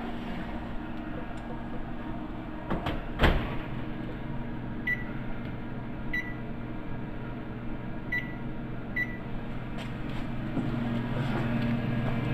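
Stainless wall oven being closed and set: a couple of knocks about three seconds in, the loudest likely the door shutting, then four short beeps from the control panel as the 400-degree bake is keyed in. A steady low hum swells near the end.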